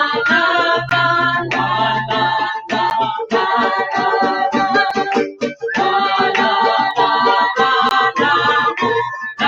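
Music: a voice singing over a rhythmic accompaniment with a steady bass line.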